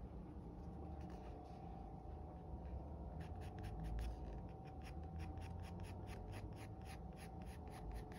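Graphite pencil scratching on drawing paper as a portrait is sketched, with faint scattered strokes at first. From about three seconds in there is a quick run of short back-and-forth shading strokes, about four or five a second.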